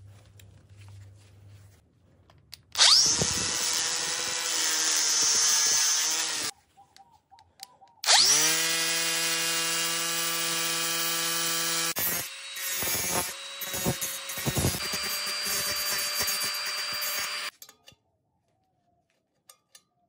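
Cordless angle grinder started twice. Each time it spins up with a rising whine, runs at speed with a steady high whine and stops abruptly. On the longer second run the sound wavers and dips several times in its latter half.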